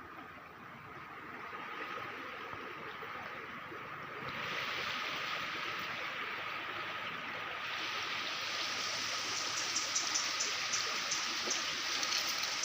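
Flowing stream water rushing steadily. It grows louder and brighter in two steps, about four seconds in and again near eight seconds, with small ticking clicks in the last few seconds.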